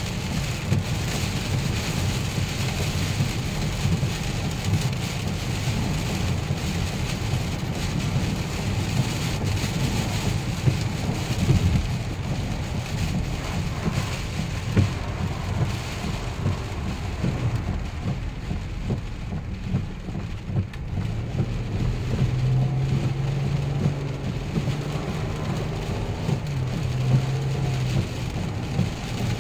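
Heavy hurricane rain and gusting wind on a moving car, heard from inside the cabin: an even hiss of rain over a dense, uneven low rumble of wind and road noise. A steady low hum joins about two-thirds of the way through.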